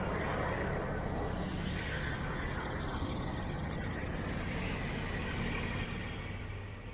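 Steady road noise of a moving vehicle, easing off near the end.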